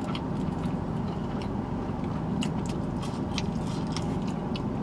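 A person chewing french fries, with small crisp mouth clicks scattered throughout, over a steady low hum.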